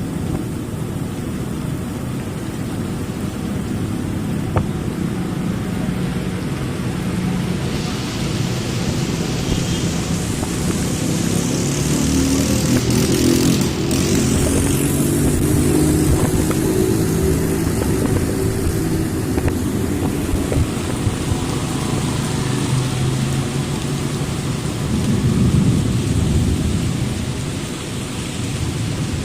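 Steady heavy rain with motor vehicles passing on a wet road; engine sound and tyre hiss swell from about eight seconds in to around twenty, and again briefly near twenty-six seconds.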